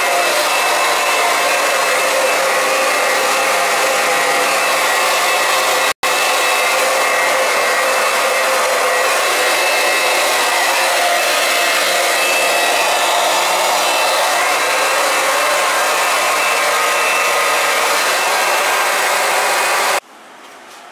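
Electric oil transfer pump running steadily with a motor whine, pumping heating oil from barrels into a new oil tank. The sound drops out for an instant about six seconds in and cuts off abruptly near the end.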